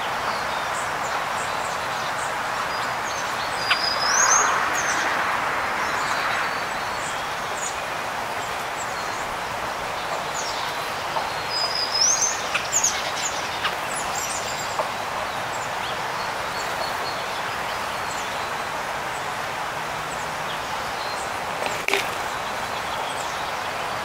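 Small songbirds giving short, high chirps, a few about four seconds in and a cluster around twelve seconds, over a steady background hiss.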